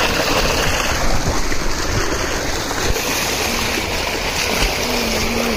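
Tubewell water gushing into a small concrete tank and churning, a steady rushing.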